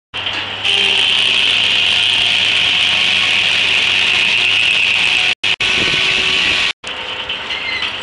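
1880s Gaar Scott circular sawmill blade ripping through a Chinese elm log with a loud, steady high-pitched whine in the cut. About five seconds in the sound cuts out briefly twice, then the blade runs on quieter, spinning free between cuts.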